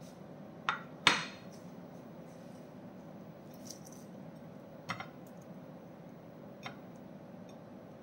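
Cooking oil heating in a black wok on a gas burner: a few sharp ticks and pops from the hot pan and oil, the loudest about a second in with a short ring, over a faint steady background.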